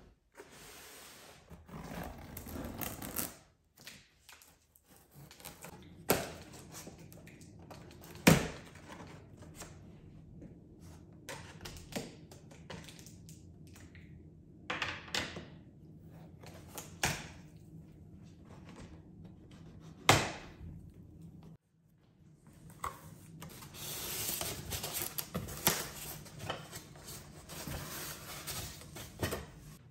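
Cardboard microwave box being handled and opened: scraping and rustling of the cardboard, with several sharp knocks and thumps, the loudest about eight and twenty seconds in. Near the end comes a stretch of steady rubbing and rustling as the foam packing is handled and the glass turntable is lifted out.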